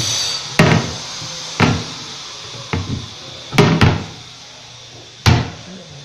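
Wooden overhead cabinet doors knocking and bumping under a hand, about six sharp knocks at uneven spacing, two in quick succession about halfway through.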